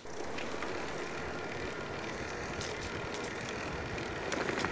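Steady riding noise from an e-bike under way, with a thin high hum and a few light clicks and rattles around the middle and near the end.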